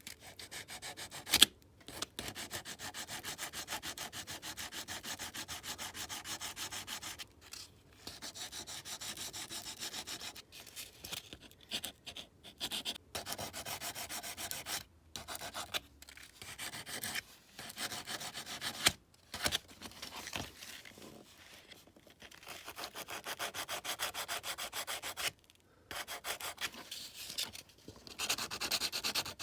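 400-grit emery cloth rubbed back and forth over the die-cast metal body of a toy model car to take down a casting line. Quick, even strokes come in runs with short pauses, and there is one sharp knock about a second and a half in.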